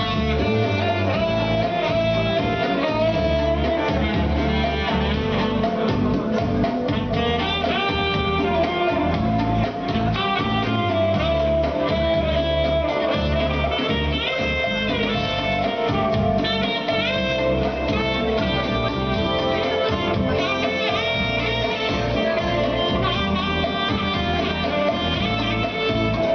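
Instrumental break of a song: a guitar-led melody with sliding notes over a steady bass line.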